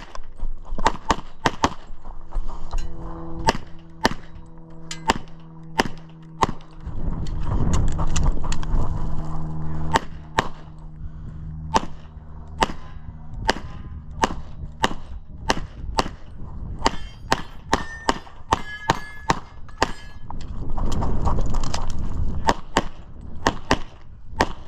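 Semi-automatic pistol firing in strings of sharp shots, often in quick pairs, with short pauses between strings. Low rumbling noise fills the gaps between some strings.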